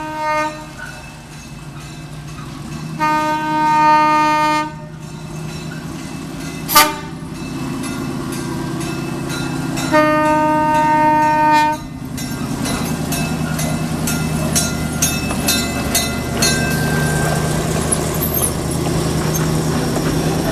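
Horn of a 1928 Plymouth gas locomotive blowing three blasts, the first ending just after the start, the others about three and ten seconds in, each nearly two seconds long, with a sharp knock about seven seconds in. From about twelve seconds on, the locomotive's gas engine runs louder and louder as it and its narrow gauge passenger cars roll past, the wheels clicking regularly over the rails.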